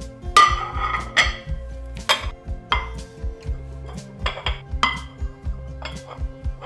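Plates clinking as they are set one at a time onto a stack in a metal wire plate rack: a string of about ten short, sharp clinks, the loudest about half a second in.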